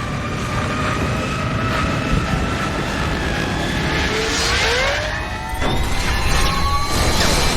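Sci-fi sound effect of a gyroscopic machine sending out energy waves: a low rumble under several steady whining tones. About four seconds in, rising pitch glides and a whooshing swell come through. After a brief dip it comes back louder with fresh tones.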